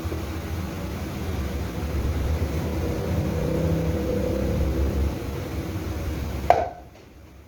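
Workshop machinery running steadily with a low hum, then a sharp click near the end, after which the noise drops away suddenly.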